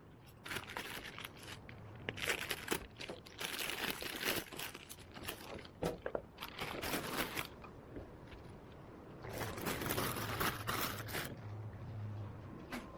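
Packaging being handled, crinkling and rustling in irregular bursts.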